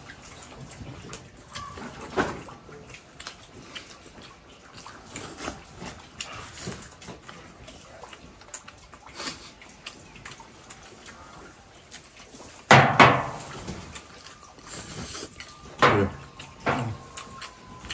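Two people eating rice: chopsticks clicking against porcelain rice bowls and serving plates, with chewing, and a few louder sounds about thirteen and sixteen seconds in.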